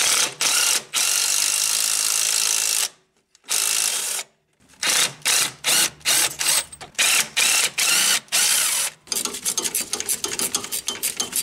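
Cordless power ratchet running in bursts as it backs out the power steering pump bolts: one long run of about two seconds, a pause, then a string of short spurts. Near the end comes a fast train of ratchet clicks.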